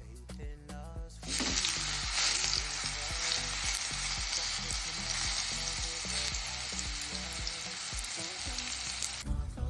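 Brinjal sizzling as it fries in hot oil: a steady, dense sizzle that starts about a second in and cuts off suddenly near the end, with background music underneath.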